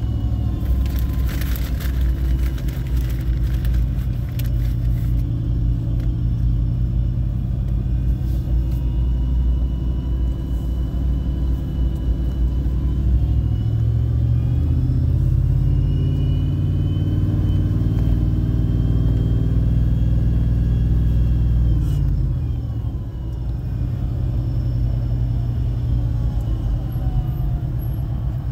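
Small-block ZZ4 5.7-litre V8 of a 1995 Chevrolet Cheyenne pickup running under way, heard from inside the cab, with a thin whine riding on it that rises and falls with engine speed. The owner puts the whine down to the power steering pump, which he expects to replace. Revs climb steadily through the middle, then drop off suddenly about three-quarters of the way through.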